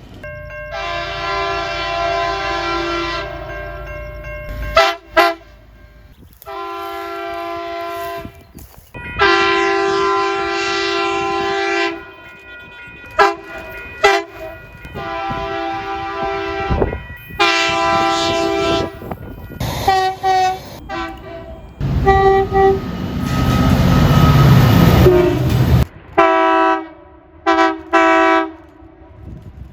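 Australian train horns sounding a series of separate blasts, some held for two to four seconds and others short toots. About three-quarters of the way through, a loud rush of train noise builds and then stops, followed by a few more short toots near the end.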